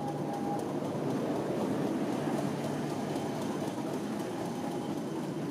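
Diesel locomotive, taken for a Class 50, running with a steady low engine hum under a broad rumble that swells a little about two seconds in and then eases. A faint high tone fades out in the first half-second.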